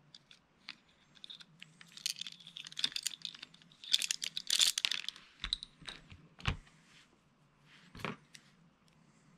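Close handling noise from a small HO-scale model locomotive chassis: a quick run of light plastic clicks and rattles as it is turned over in the hands, busiest in the middle, then three sharper knocks in the second half.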